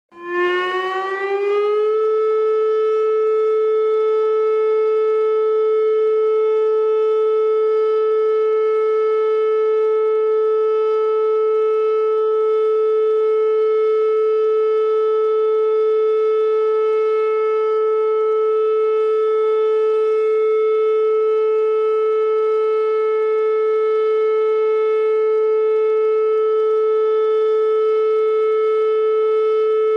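Warning siren winding up, rising in pitch over about the first two seconds, then holding one steady, loud tone.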